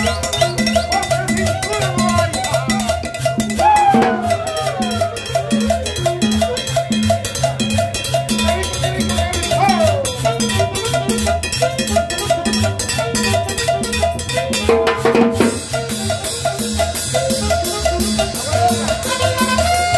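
Live tropical dance band playing: a steady percussive beat and a repeating bass line from upright bass and hand drums, with saxophone and a man singing.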